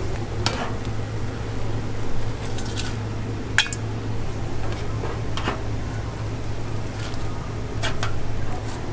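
Metal cooking utensils clinking against stainless steel bowls and a pot as cooked ramen noodles are dished out: scattered sharp clinks, the sharpest about three and a half seconds in, over a steady low hum.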